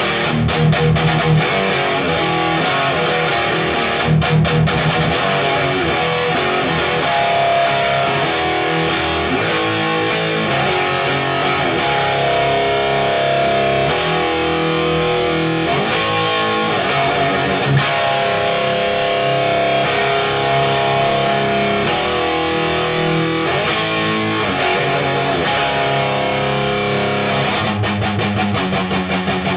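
Heavily distorted electric guitar through a Randall Diavlo RD20 tube amp on its high-gain Fortin channel, turned up loud: a metal riff of fast palm-muted chugs near the start, around four seconds in and at the end, with held chords and single-note lines between.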